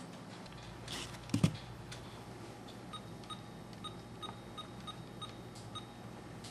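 A handheld phone's keypad beeping as a number is dialled: about ten short beeps, all of one pitch, in quick succession in the second half. A single knock from handling comes first, about a second and a half in.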